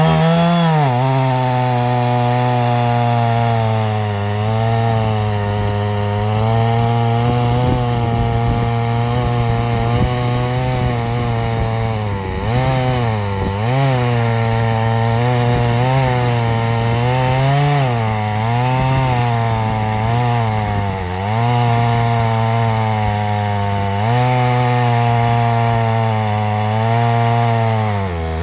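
Two-stroke chainsaw on an Alaskan chainsaw mill, running at full throttle while it rips lengthwise through an ash log. The engine revs up at the start and then repeatedly sags in pitch and recovers as the chain bogs in the hard ash.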